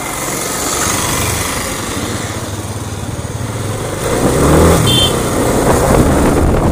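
Yamaha FZ25's single-cylinder engine running as the motorcycle rides along a street, heard from the bike with wind noise on the microphone; the engine gets louder about four seconds in. A brief high-pitched tone sounds about five seconds in.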